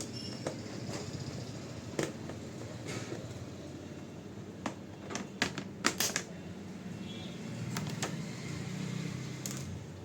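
Sharp clicks and snaps, about nine of them, several close together around the middle, as the bottom cover of a Dell 5000-series laptop is unscrewed and prised off its plastic case.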